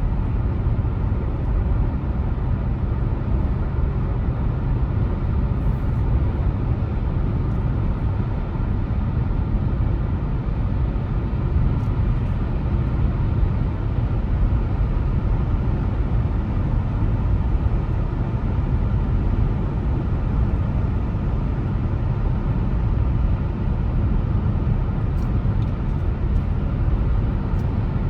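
A car driving at a steady pace: a continuous low rumble of road and engine noise that holds an even level, with no sharp events.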